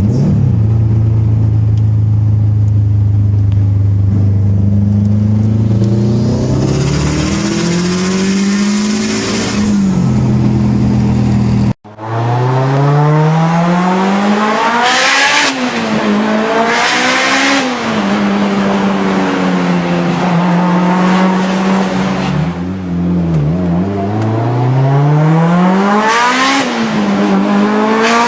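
Tuned turbocharged car engines revving: one holds a steady idle, then rises with a hiss. After an abrupt cut, another revs up and holds high revs, with repeated loud hissing bursts as the revs briefly dip and recover.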